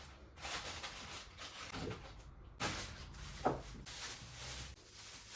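Kitchen food-prep handling sounds: irregular knocks, clatter and rustling as fruit and utensils are handled, with a couple of sharper knocks partway through.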